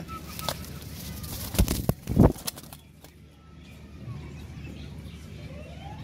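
A male Asian koel's wings flapping in a short flurry of loud beats about one and a half to two and a half seconds in, as the bird struggles in a hand's grip.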